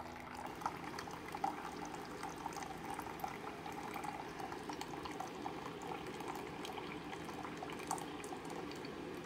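Keurig coffee maker running a descaling brew: a thin stream of hot descaling solution pouring steadily from the brewer's spout into a plastic measuring cup, with small ticks and spits through it.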